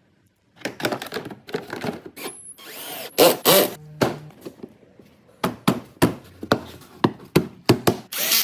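Workshop tool noises: a burst of clattering and scraping about half a second in, then a run of sharp clicks and knocks.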